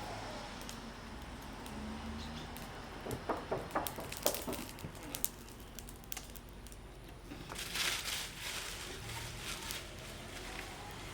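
Handling noise: a quick run of sharp clicks and knocks about three to five seconds in, then a short rustling hiss near eight seconds.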